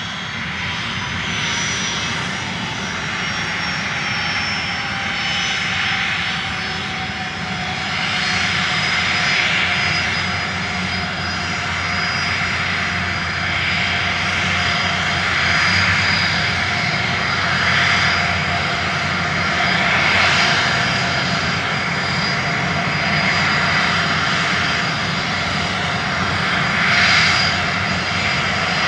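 Small camera drone's electric motors and propellers whining steadily in flight, with a rushing noise that swells every couple of seconds.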